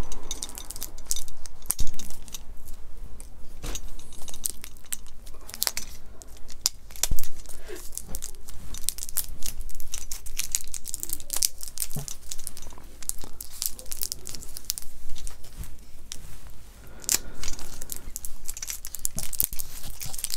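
Bubble wrap packaging being pulled apart and unwrapped by hand: a steady, irregular run of crinkling crackles with sharper tearing sounds, easing off briefly about three-quarters of the way through.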